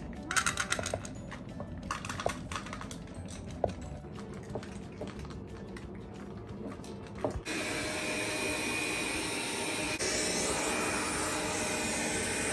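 Several cats eating dry food from bowls, with scattered small crunching clicks. About seven seconds in, this gives way abruptly to the steady whir of a robot vacuum cleaner running.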